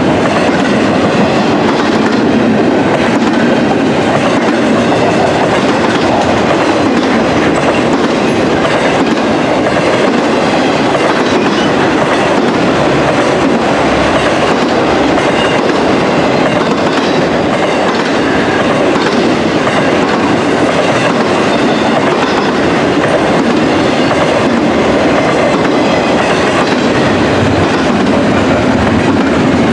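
BNSF intermodal freight train's double-stack container well cars and trailer flatcars rolling past at speed: loud, steady noise of steel wheels on rail, with no breaks.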